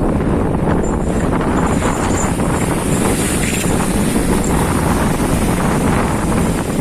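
Strong wind buffeting the microphone on a boat in rough seas, a steady loud rush over a low rumble.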